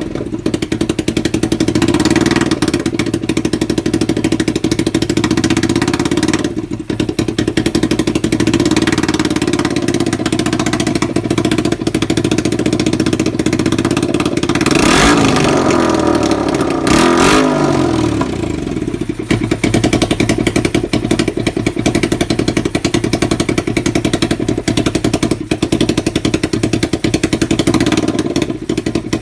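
Kawasaki EX500 (Ninja 500R) parallel-twin engine idling steadily as it warms up on its first start after the carburettors were reinstalled. The throttle is blipped twice, briefly, about 15 and 17 seconds in, each time rising and falling back to idle.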